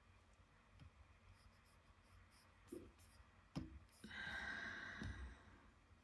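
Near silence in a small room, broken by a few faint clicks and a soft breathy rush about four seconds in that lasts about a second.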